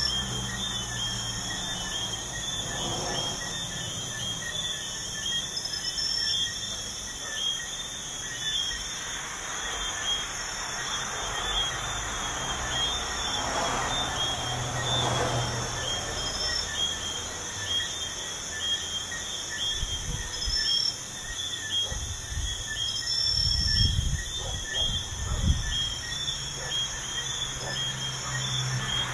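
Crickets chirping in a steady, pulsing chorus over the rumble of highway traffic. A vehicle swells past about halfway through, and heavier low rumbles come near the end.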